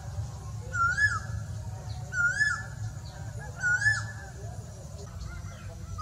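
Male Asian koel calling: a short whistled note that rises and then falls, repeated three times about one and a half seconds apart.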